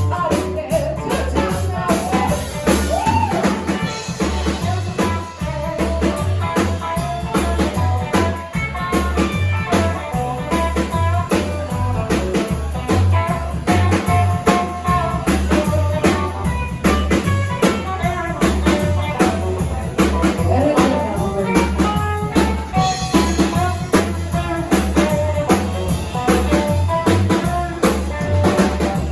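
Rock and roll band playing live, with a driving drum kit beat, guitar and singing.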